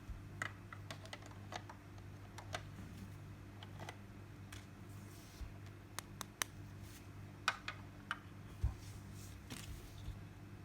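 Irregular light clicks and taps of small plastic toy pieces being handled, over a steady low hum.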